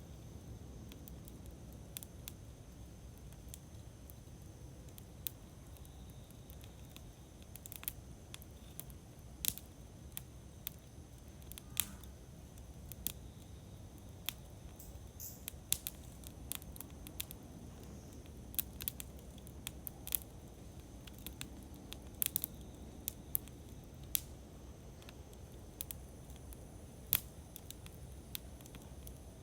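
Campfire burning, wood crackling and popping in irregular sharp snaps over a low steady rumble of the flames. A faint steady high tone runs underneath.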